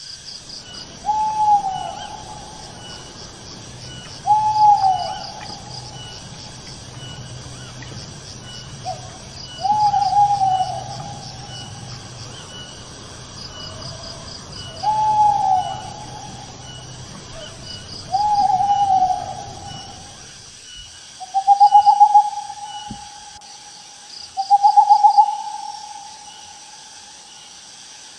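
An owl hooting repeatedly, one call every three to five seconds, with crickets or other insects chirping steadily behind it. About two-thirds of the way through the background changes and the hoots become longer and wavering.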